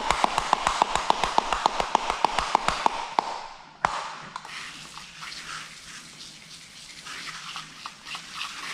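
Hand spray bottle misting slip solution for paint protection film: a quick run of trigger clicks over a spray hiss for about three seconds, then a single click and quieter handling.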